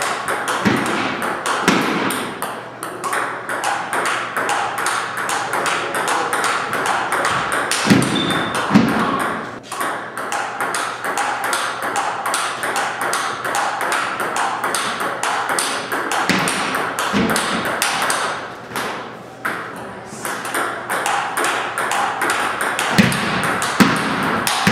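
Table tennis ball hit back and forth in a long rally: a steady run of sharp clicks, several a second, as the ball strikes the paddles and bounces on the table. Now and then there is a dull low thump.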